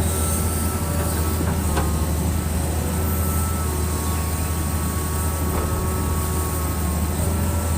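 Excavator's diesel engine running steadily with a deep drone as the machine travels, with thin high squeals from the moving tracks coming and going over it.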